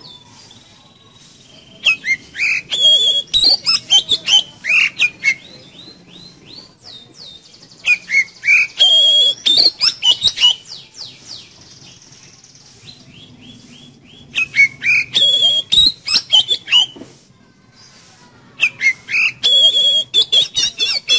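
Oriental magpie-robin (kacer) singing: four bursts of rapid, varied whistles and chattering notes, with short pauses between the bursts.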